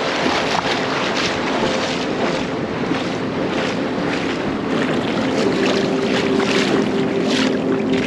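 Shallow surf washing over sand, a continuous hiss broken by repeated small splashes, with a steady low hum underneath.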